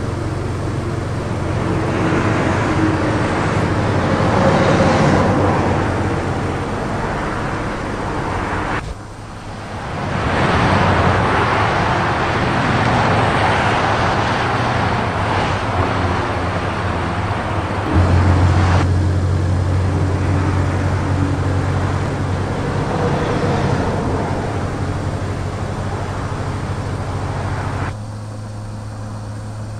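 Road traffic: cars passing on a motorway in repeated swells of tyre and engine noise over a steady low hum, with a few abrupt changes where the sound cuts.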